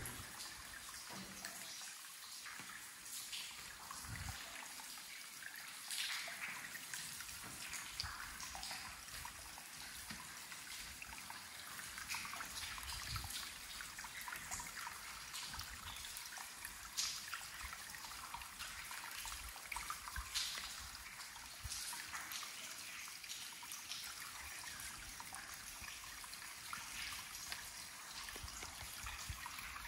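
Water trickling steadily, as of a small stream, with a few sharp clicks or knocks here and there.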